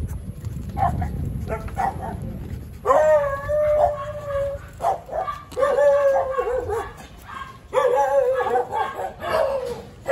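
A dog howls in three long drawn-out cries, each dropping slightly in pitch, after a few short yips. A low wind rumble runs underneath for the first three seconds.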